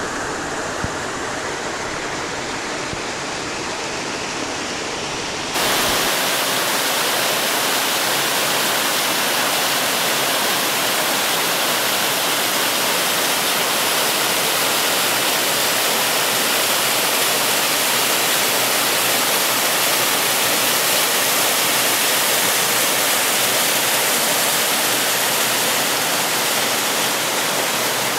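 Rushing water of a rocky trout stream tumbling over small cascades, a steady hiss. About five seconds in it jumps suddenly to a louder, fuller rush of falling water.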